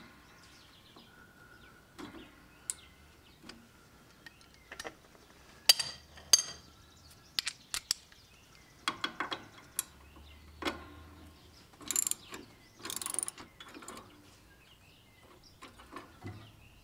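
Hand work on the nut and bolt of a lawn tractor's drive idler pulley gives scattered metallic clicks and short rattles at uneven intervals.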